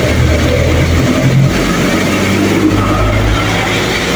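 A cargo truck's engine running as the truck drives through floodwater on the street, over the steady noise of heavy rain. The engine is strongest in the first second and a half and rises again near the end.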